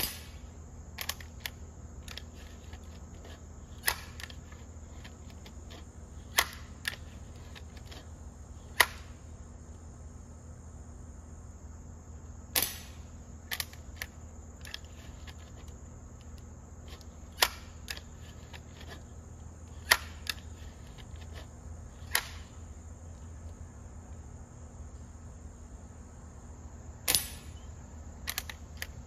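Legacy 1000 break-barrel air rifle being handled and fired: about a dozen sharp clicks and snaps scattered through, the loudest about nine and twenty seconds in. A steady high insect drone runs underneath.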